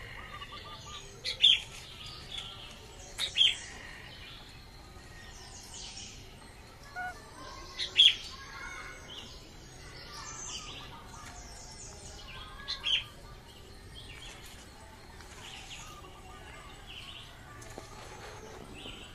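Birds chirping throughout, with a handful of louder, short, sharp chirps that come mostly in quick pairs, spaced several seconds apart.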